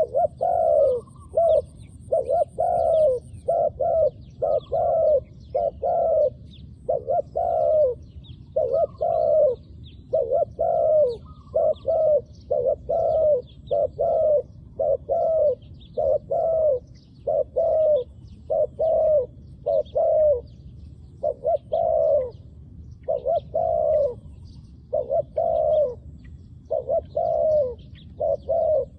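Decoy dove cooing over and over in quick clusters of short notes, about one cluster a second: a trained call bird calling in wild doves to a trap.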